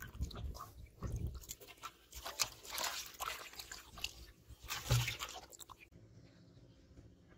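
Live fish flapping and splashing in a little water in an aluminium basin as a hand handles them: irregular wet splashes and crackles, with one louder thump about five seconds in. The sounds stop about six seconds in, leaving only a faint steady background.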